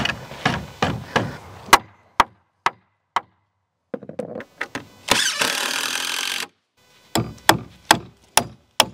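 Hammer driving nails into a 2x4 shed wall frame, nailing it down to the plywood floor: a run of sharp strikes at the start and again near the end at about three a second. In between, a few scattered knocks and a hiss lasting just over a second.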